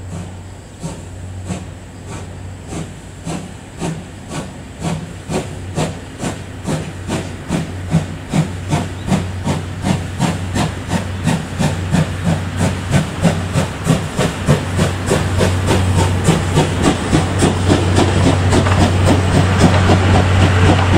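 C11 2-6-4T steam tank locomotive working hard, its exhaust beating in a regular chuff that quickens from about one a second to three or four a second and grows louder as the train draws near, over a steady low drone.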